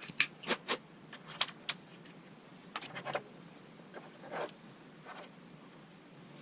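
Irregular light metallic clicks and clinks, several with a brief high ring, as small metal parts or tools are handled.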